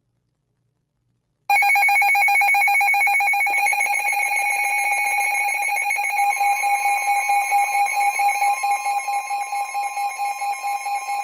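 An electronic emergency alert tone comes on suddenly about a second and a half in: a loud, steady alarm tone, which signals that a severe thunderstorm warning is about to be broadcast. Partway through, a second, slightly higher tone joins and the sound takes on a quick pulsing.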